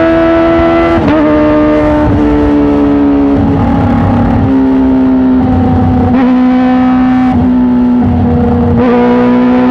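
Kawasaki ZX-25R's inline-four engine running at high revs through an Arrow titanium full-system exhaust. It is loud and steady, its pitch sinking slowly and then climbing, with several brief rough breaks.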